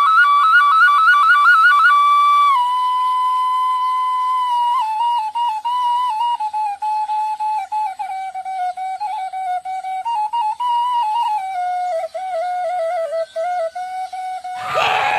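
Background music: a single flute-like melody with rapid trills for the first two seconds, then a slower, wavering tune that gradually sinks lower. Near the end a crowd's shouting and yelling cuts in.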